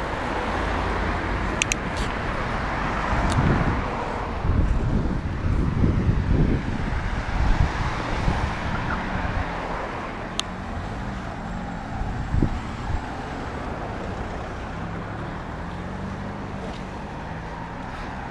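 Road traffic: cars driving past on a street, a steady noisy rumble that swells loudest about four to eight seconds in, with a few brief clicks.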